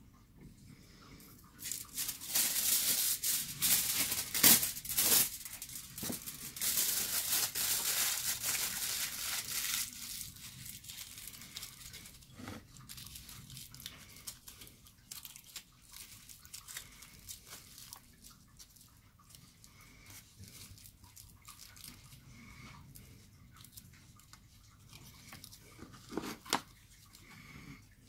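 Aluminium foil being torn and crumpled by hand: loud dense crinkling for several seconds, then fainter, intermittent scrunching as the foil is squeezed into a small ball.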